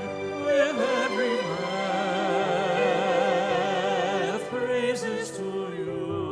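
Background music: a slow melody of long, wavering held notes, the longest in the middle.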